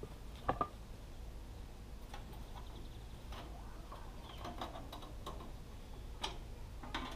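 Scattered light clicks and knocks of hands working on the open blade-wheel housing of a Woodland Mills MH126 band sawmill, its engine off. The loudest is a sharp double click about half a second in.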